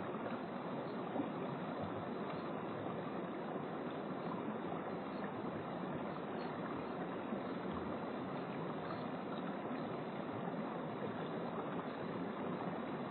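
Steady rushing outdoor background noise, even throughout, with no distinct events.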